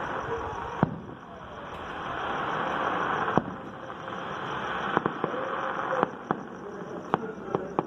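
Distant fireworks and gunfire: scattered sharp cracks and bangs over a steady rushing hiss. The hiss swells over the first three seconds and breaks off with a loud crack about three and a half seconds in, followed by a quicker run of cracks in the second half.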